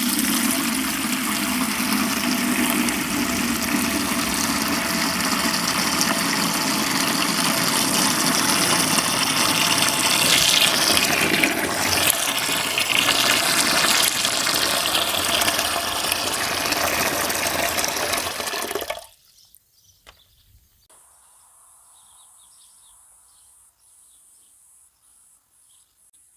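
Gravity-fed water running steadily from a tap into a galvanized bucket sink during its first test. The rushing stops suddenly about 19 seconds in.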